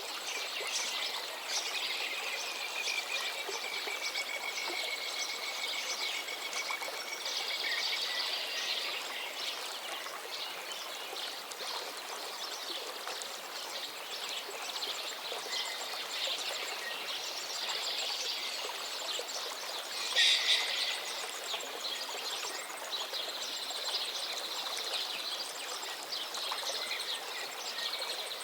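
Many songbirds singing and chirping together over a steady background hiss, with one long, slightly falling whistle a couple of seconds in and a louder burst of calls about twenty seconds in.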